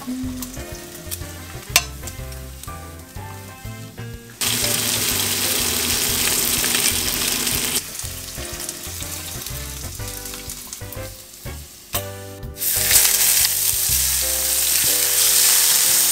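Maple bacon sizzling in a frying pan, loudest for a few seconds about four seconds in and again from about thirteen seconds in, with background music under it.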